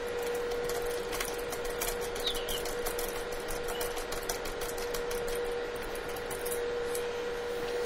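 Small screws being turned into a hard-drive enclosure's cover with a hand screwdriver: faint irregular clicks and scrapes over a steady hum.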